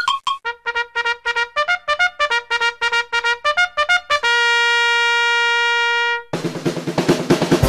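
Intro music: a brass-like lead plays a quick run of short staccato notes and ends on one long held note, then about six seconds in it switches abruptly to a fuller band track with a steady beat.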